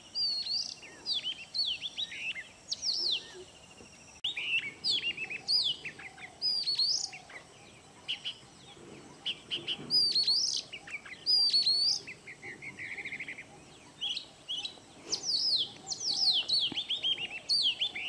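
Oriental magpie-robin singing: a varied run of clear whistled phrases that sweep up and down, with a fast rattling trill about thirteen seconds in. It is the male's song to his mate.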